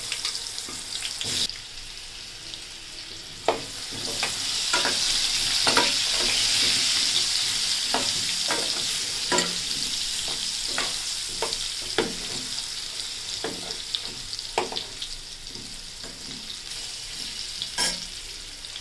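Cut potatoes frying in hot oil: a steady sizzle that swells about four seconds in and slowly eases. A utensil knocks and scrapes against the pan every second or so as the potatoes are stirred.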